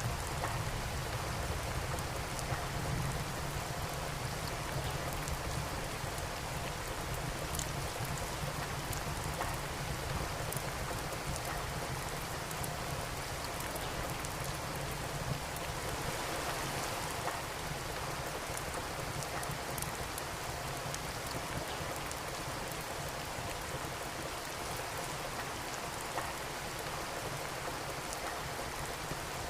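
Steady rain falling, mixed with the crackle of a wood fire in a fireplace. Small scattered clicks and pops run through an even hiss, over a low rumble.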